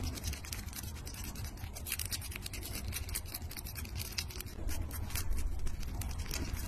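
A toothbrush scrubbing a cat's teeth: rapid, uneven scratchy strokes of the bristles against the teeth.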